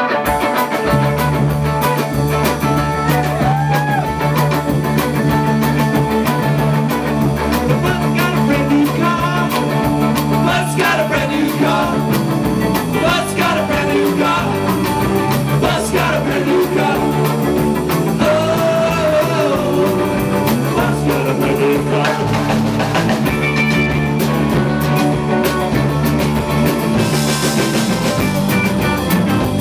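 Live rock band playing loudly: electric guitars, bass and drum kit, the full band coming in right at the start.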